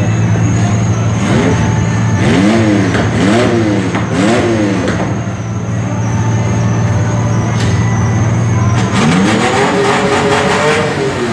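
A pulling vehicle's engine idling with a low drone, blipped four times about a second apart, then revved up and held high for about two seconds before dropping back near the end.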